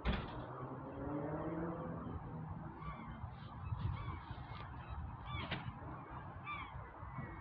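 Domestic cat giving a long, drawn-out meow that ends about a second in, then scattered short chirps of small birds.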